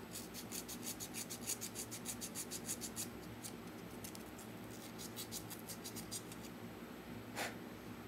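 Fine sandpaper rubbed quickly back and forth over the oxidized contacts of an antique Cutler-Hammer lantern switch: a fast run of scratchy strokes, about ten a second, for roughly three seconds, then two single scrapes.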